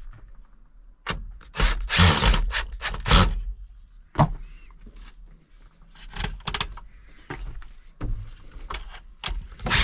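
Irregular knocks, clicks and clatters of parts and tools being handled, several sharp ones close together about two to three seconds in and more near the end.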